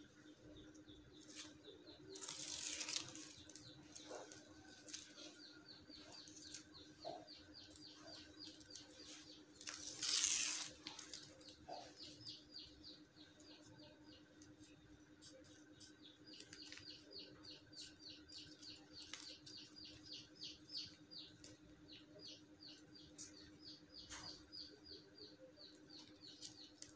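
Plastic ribbon and strap being handled and trimmed: two louder brief rustles, one about two seconds in and one about ten seconds in, with scattered small clicks. Faint high chirps repeat in quick runs throughout, over a faint steady hum.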